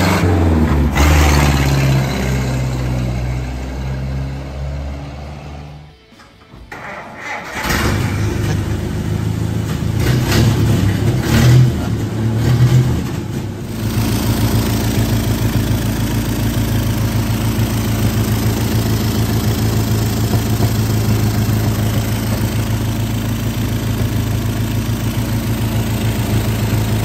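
1932 Plymouth PA's four-cylinder flathead engine running as the car is driven. Its pitch falls at first, then the sound drops away about six seconds in. It comes back with uneven surges of revving before settling into a steady drone for the rest. The exhaust has a leak through a holed muffler.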